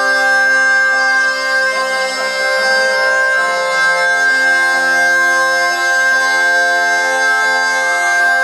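Zampogna, a southern Italian bagpipe, playing a melody over steady drones: the held drone tones stay fixed while the melody notes move beneath them.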